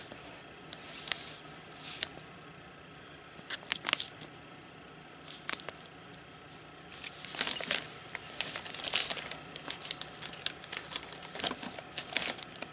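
Clear plastic card sleeves crinkling as they are handled and flipped, in short irregular bursts with a longer stretch of rustling a little past the middle.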